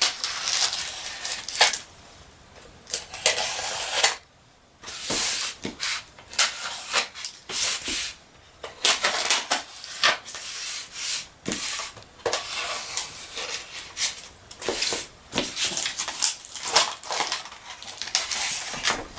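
Cardboard and plastic packaging being handled, rustling and scraping in short, irregular bursts with brief pauses, as a diecast model fire truck is worked out of its box.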